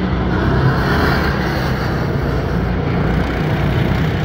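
Engines of several small dirt-track race cars running steadily as the pack drives through a turn.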